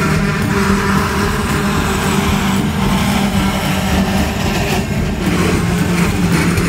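Freight train's hopper wagons rolling past, a steady rumble of steel wheels on the rails with a few knocks from the wheels near the end.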